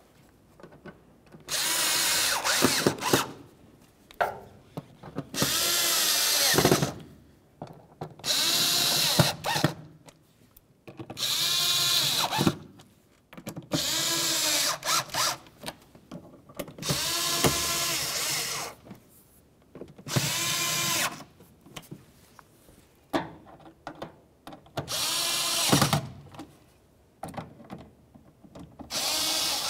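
Small cordless drill-driver running in about nine short bursts, each a second or two long, its motor pitch rising and falling with each one, as it drives plastic cowl screws snug.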